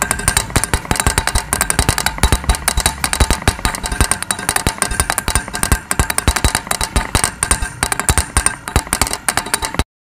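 Small DC motor spinning a plastic flap that rapidly strikes a metal drink can, making a continuous loud rattling clatter with some ringing from the can. It cuts off abruptly just before the end.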